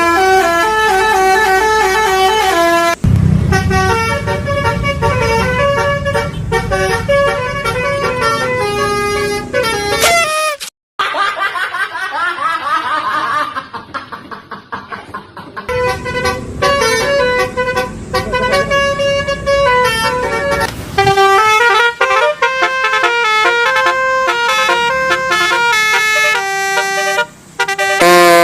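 Basuri telolet bus horn, a multi-trumpet musical horn, playing quick melodies of stepped notes over a low engine rumble. It cuts out briefly about ten seconds in, gives way to a few seconds of quieter wavering tones, then the melodies resume.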